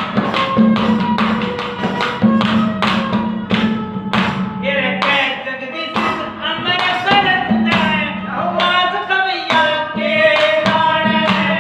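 Haryanvi ragni: harmonium and dholak accompaniment with steady, evenly spaced drum strokes, joined about four and a half seconds in by a man's voice singing the melody.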